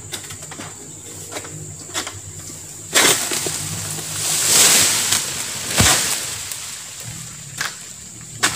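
Oil palm fronds rustling and scraping as a frond is cut and pulled down through the crown with a pole harvesting sickle. The rush of noise starts suddenly about three seconds in and swells, with a sharp knock near the middle and single clicks later.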